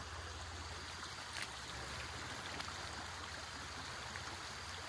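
River water running steadily, with one faint click about a second and a half in.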